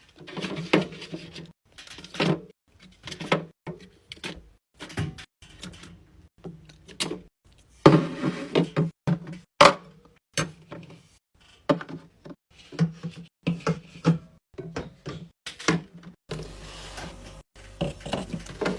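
Items being handled and set down while a mini fridge is restocked: a run of irregular knocks, clicks and rubs of containers against shelves and each other.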